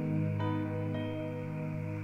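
Soft, slow background music with sustained chords that shift about half a second in and again about a second in.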